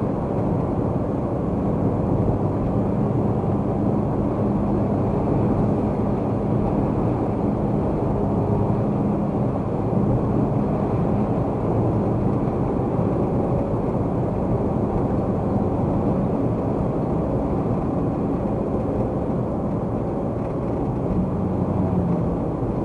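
Car at freeway speed, heard through a dashcam: a steady rumble of tyres on the road with a low engine hum.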